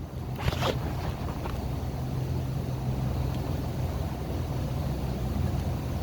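Steady low hum of milking-barn machinery, with a brief sharp scraping sound about half a second in.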